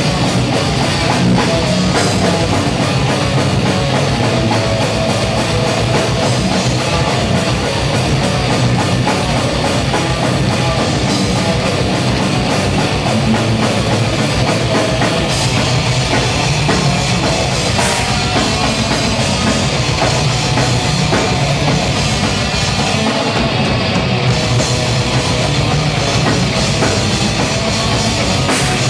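Live heavy metal band playing loud: distorted electric guitars and bass over a drum kit with rapid, even kick-drum beats.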